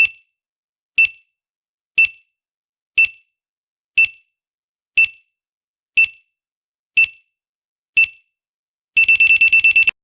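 Quiz countdown timer sound effect: a short high beep once a second, then a fast run of about ten beeps in the last second as time runs out.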